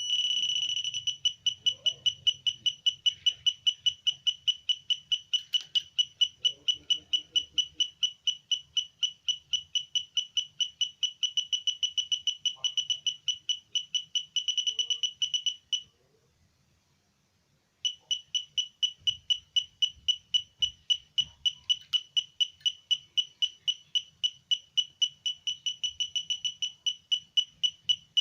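Simple homemade metal detector's audio beeping: a high tone, steady for about a second, then pulsing about three times a second. It cuts out for about two seconds past the middle, then resumes pulsing.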